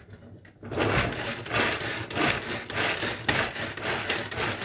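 Tupperware Extra Chef pull-cord chopper being worked, chopping shallots. From about a second in, the cord is pulled about twice a second, and each pull spins the blades with a rasping whir.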